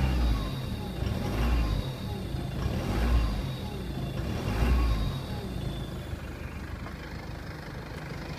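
Jeep Liberty CRD's 2.8-litre four-cylinder turbodiesel revved in short surges about every one and a half seconds, four times, each with a faint whine that glides in pitch, then settling to a steadier run in the last few seconds.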